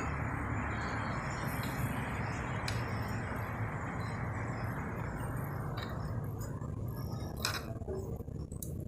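A few light metallic clinks of small engine parts being handled as a gear wheel is fitted onto its keyed shaft, over a steady low hiss that thins out near the end.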